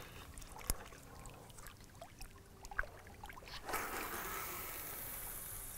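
Fishing line hissing off a spinning reel and through the rod guides during a long cast, a steady hiss that starts about two-thirds of the way in after a few faint handling clicks.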